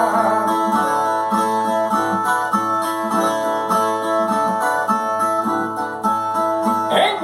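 Brazilian viola (ten-string folk guitar) plucked and strummed in a steady instrumental interlude between sung stanzas of a repente.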